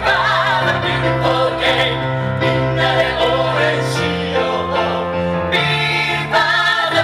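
A song playing: a singing voice over instrumental accompaniment with held bass notes that change a few times.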